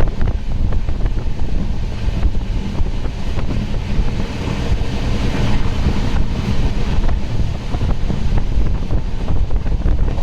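Passenger train running at speed, heard from on board: a steady rumble of wheels on rail with scattered clicks, and wind buffeting the microphone.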